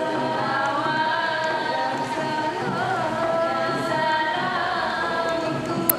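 Women's nasyid group singing, several voices holding long notes together in harmony. A brief sharp click sounds just before the end.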